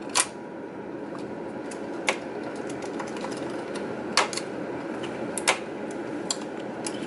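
Sharp little clicks and taps, a handful at irregular intervals over a steady hiss, as wire connectors are pulled off the print head's circuit board in an Epson R3000 printer.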